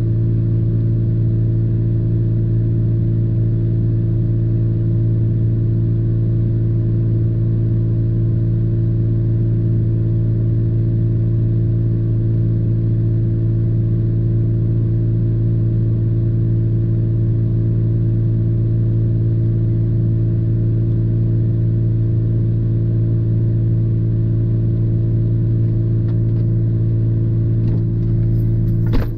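Parked vehicle's engine idling with a steady, even hum. Near the end a single sharp thud sounds as the driver's door is worked.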